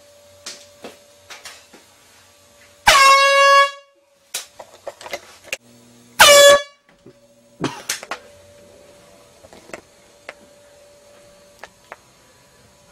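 An air horn rigged to a toilet as a prank goes off twice: a blast of just under a second about three seconds in, then a shorter one about six seconds in. Small clicks and knocks sound between and after the blasts.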